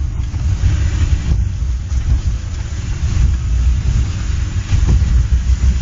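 Vehicle interior noise while driving slowly: a steady low rumble of engine and road, heard from inside the cabin.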